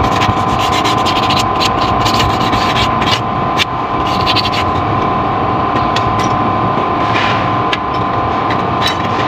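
Steady mechanical running noise with a constant whine, overlaid by frequent short clicks and taps.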